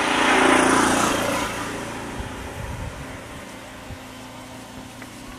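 Small step-through motorcycle passing close by: its engine swells to its loudest about half a second in, then fades away over the next couple of seconds.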